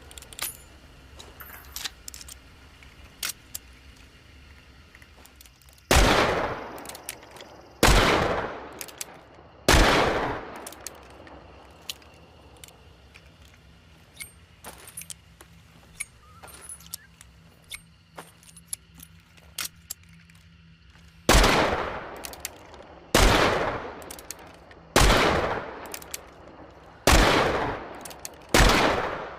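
Smith & Wesson Schofield Model 3 revolver firing: three shots about two seconds apart, each followed by a ringing echo. Then come light clicks and handling noises, and then five more shots at the same pace near the end.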